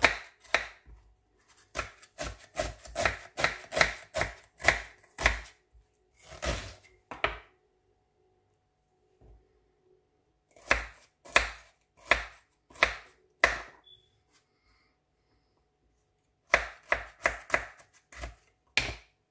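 Knife chopping vegetables on a plastic cutting board: runs of sharp knocks, about two to three a second, broken by pauses of a couple of seconds between runs.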